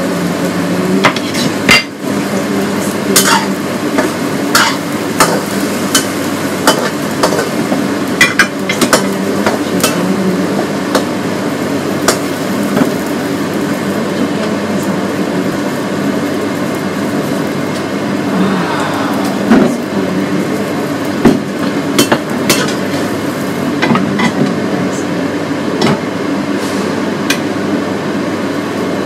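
Stir-frying in a wok: food sizzling steadily while a metal spatula clinks and scrapes against the wok many times. A steady hum runs underneath.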